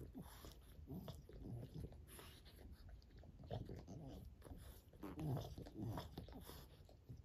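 French bulldog licking another French bulldog's head and ear: soft wet licking and mouthing sounds, with a few short low grunts from the dogs about five seconds in and again near the end.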